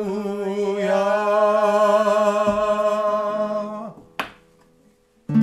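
A long note held at the end of a Hebrew chant, sung for about four seconds and then released. A sharp click follows, a short near-silent gap, and then a nylon-string classical guitar chord strummed right at the end.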